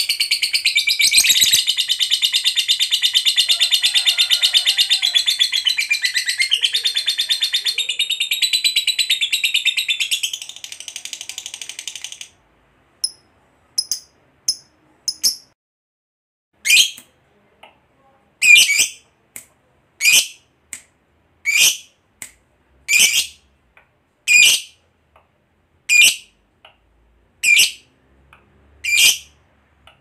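Lovebird giving its long rapid chattering trill (the "ngekek panjang" prized by lovebird keepers), high and shrill, which stops about twelve seconds in; after that it gives single short shrill chirps, about one every second and a half.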